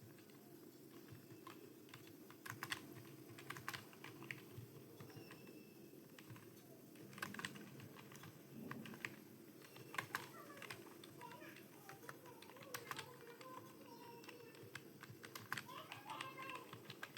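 Typing on a computer keyboard: faint, irregular keystroke clicks at an unhurried pace, with short pauses between runs of keys.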